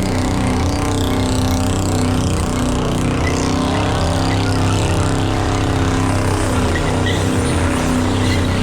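V8 car engine running hard at high, steady revs, its pitch held nearly constant, as in a burnout.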